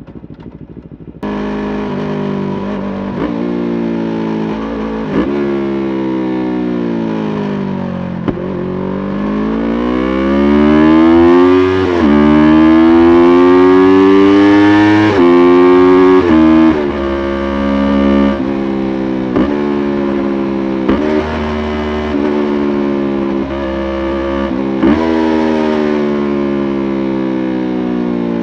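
Yamaha YZF-R3's parallel-twin engine under way. It gets suddenly louder about a second in, and the pitch falls through a series of downshifts for several seconds. From about eight seconds in it rises at full loudness under hard acceleration, then runs through repeated gear changes with the pitch dropping at each shift.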